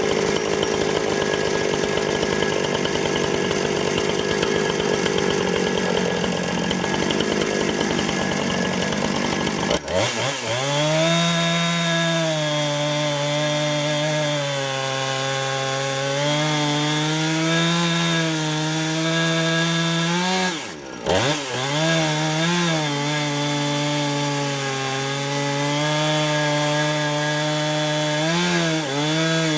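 Husqvarna 455 Rancher two-stroke chainsaw running at high revs in a chainsaw mill, ripping a log lengthwise. About ten seconds in the sound changes abruptly to a clearer engine tone whose pitch wavers up and down, and about two-thirds of the way through the revs drop briefly and come straight back up.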